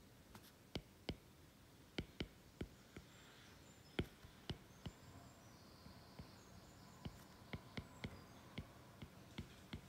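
Faint, irregular clicks of a stylus tapping and writing on a tablet screen, about one or two a second, over low room hiss.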